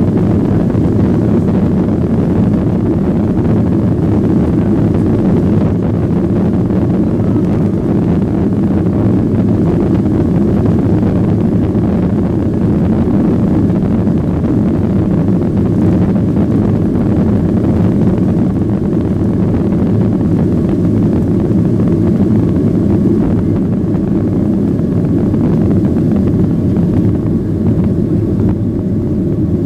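Boeing 737-800's CFM56 jet engines at takeoff thrust, heard inside the cabin as a loud, steady low rumble mixed with runway noise while the airliner accelerates down the runway.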